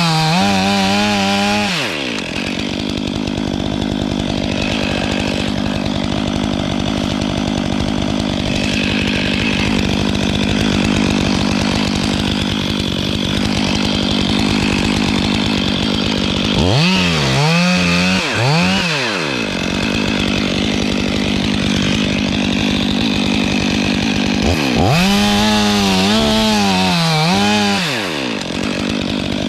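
Stihl 500i two-stroke chainsaw at high revs in three spells, at the start, about halfway through and near the end, its pitch dipping and wavering as it bites into the wood. Between cuts it runs steadily at lower speed.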